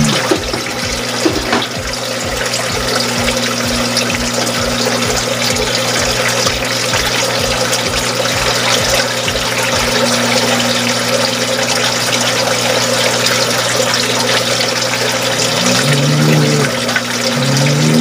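Water pouring and bubbling steadily into a frog tank; near the end a pixie frog (African bullfrog) gives two deep, low-pitched calls about a second each.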